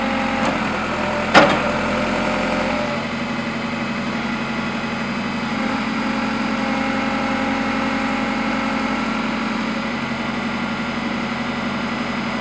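JCB 4CX backhoe loader's diesel engine idling steadily, with one sharp metallic knock about a second and a half in.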